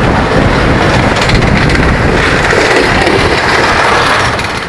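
Loud, steady rush of wind and rolling rail noise at the open window of a moving train as trains pass close alongside, fading near the end.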